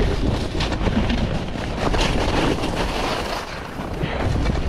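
Wind buffeting the microphone of a camera worn by a downhill skier, with the skis scraping and chattering irregularly over tracked, uneven snow.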